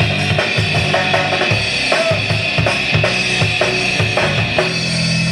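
Loud music with a driving drum-kit beat of bass drum, snare and cymbals. About four and a half seconds in it settles into a steady held low note.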